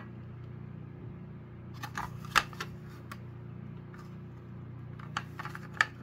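Plastic smoke alarm being handled: a few sharp clicks and taps of its shell, in two small clusters, over a steady low hum.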